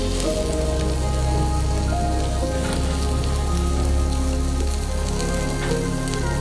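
A slice of wagyu beef sizzling on a hot stone grill plate: a steady crackling hiss, with background music over it.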